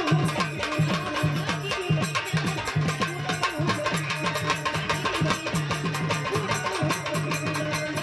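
Instrumental music of a Marathi devotional folk song, with a steady, quick percussion beat.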